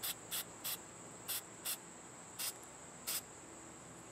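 Rust-Oleum camo spray paint can giving seven short spritzes of hiss, each a fraction of a second, as paint is dusted through leaf stencils. A steady high cricket trill runs underneath.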